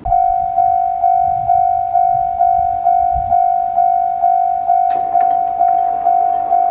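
Japanese railway level-crossing warning bell starting up and ringing a steady clear tone about twice a second, each strike fading before the next. About five seconds in, the rumble of an approaching train joins it.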